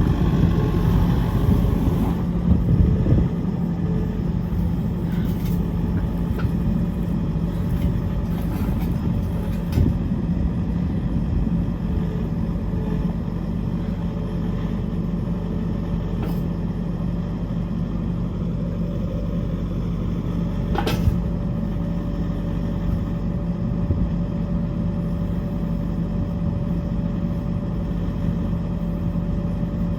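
Skid steer engine idling steadily, with a single sharp click or clank about two-thirds of the way through.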